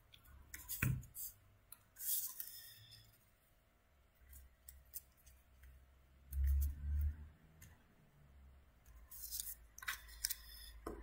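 Handling of paper cut-outs and craft tools on a tabletop: scattered soft clicks and brief paper rustles, with a dull knock on the table about six and a half seconds in.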